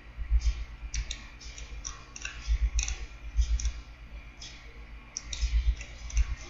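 Computer mouse clicking at irregular intervals, with dull thuds on the desk underneath, as line points are placed in a CAD drawing.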